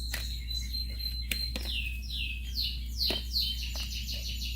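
A bird chirping: a high held whistle, then a run of quick falling notes that speeds up into a rapid trill in the second half. A few light knocks sound with it.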